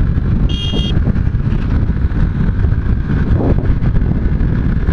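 Heavy wind noise on the microphone of a Benelli TNT150 motorcycle accelerating hard through about 90 km/h in fourth gear, with the engine buried beneath it. A short, high-pitched beep sounds about half a second in.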